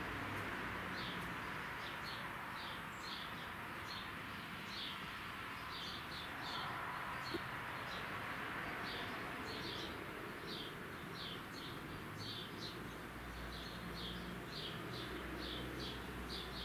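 A small bird chirping repeatedly with short high chirps, about two a second in loose runs, over steady background noise.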